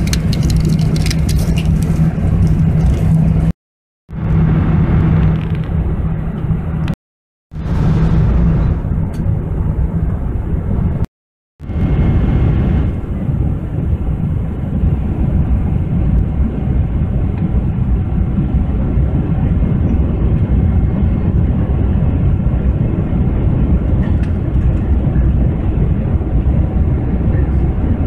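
Airliner cabin noise in flight: a steady, loud rush of engines and airflow, broken by three short silent gaps in the first twelve seconds where the recording cuts.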